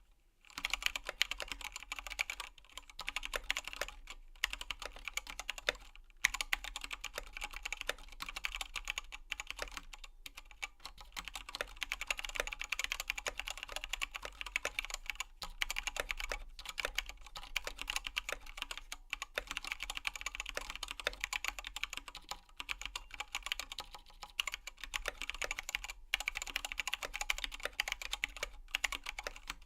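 Fast, continuous typing on a KBDfans KBD19x mechanical keyboard with Zealio tactile switches and XDA-profile keycaps: a dense stream of keystroke clacks, broken by a few brief pauses.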